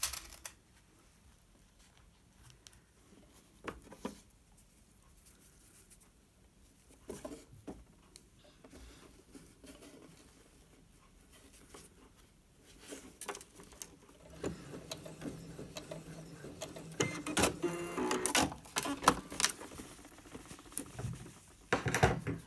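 Fabric and lace being handled at a Brother F420 sewing machine: soft rustling and scattered clicks. About two-thirds through, a louder stretch of several seconds with a steady hum, the machine running briefly.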